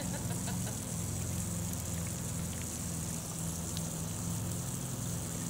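Water jets from a splash-pad sprinkler hissing and pattering onto the pad and grass, over a steady low machine hum.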